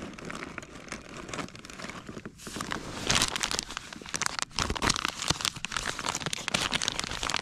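Plastic bags of Berkley PowerBait soft-plastic baits crinkling and rustling as they are handled and sorted, louder from about three seconds in.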